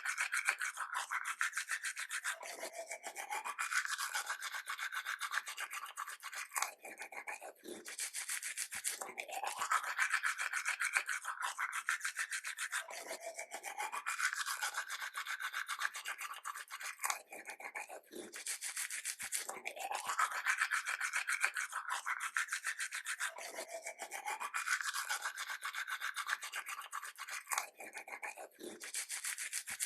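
Teeth being brushed with a toothbrush: continuous rapid scrubbing strokes. The brushing sound rises in pitch and falls back in a cycle that repeats every four to five seconds.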